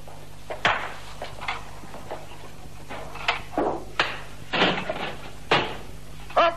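Irregular knocks and clatters, about eight in all, as a large round metal tray is handled and a bucket is set on it, over a steady low hum.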